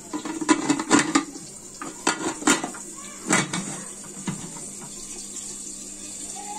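Aluminium pressure cooker lid being fitted and locked onto the pot: about eight metal clinks and knocks of lid against rim over the first four seconds or so, then they stop.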